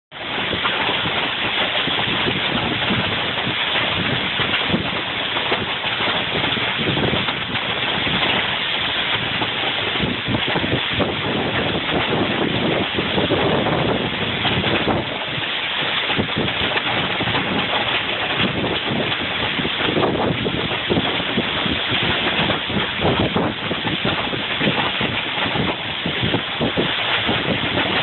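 Heavy rain driven sideways by strong, gusting wind: a loud, steady hiss that surges with the gusts, with wind buffeting the microphone.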